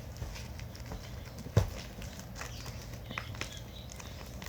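Scattered light taps and clicks of small objects being handled, with one louder knock about a second and a half in.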